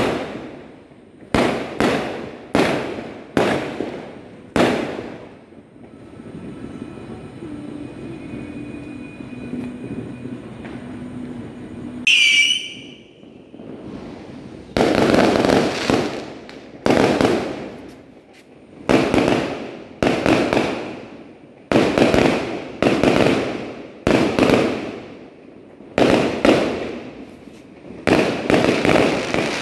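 Aerial fireworks shells bursting overhead one after another, about one bang a second, each with a crackling tail. In the middle there is a lull of several seconds with only a steady low hum, then a short wavering whistle before the bangs start again.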